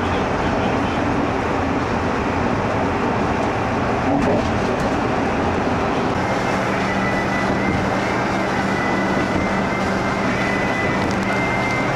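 A vehicle running with a steady loud rumble. About halfway through, a high whine and a low hum join it.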